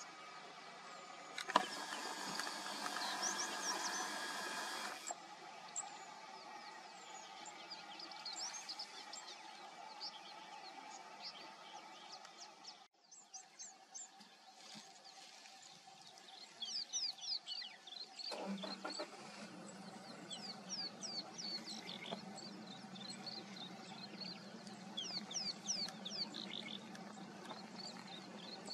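Bush ambience with many small birds chirping and calling throughout. The background noise changes abruptly a few times, and a low steady hum comes in after about two-thirds of the way through.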